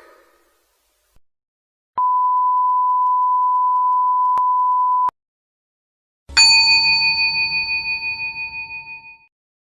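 A steady single-pitch beep tone, like the TV bleep, held for about three seconds and cut off sharply. Then, about six seconds in, a bell-like ding that rings on and fades with a wavering pulse over about three seconds.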